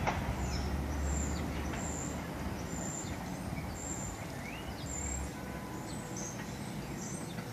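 Low rumble of a receding R68A subway train fading slowly as it pulls away, with small birds chirping repeatedly over it.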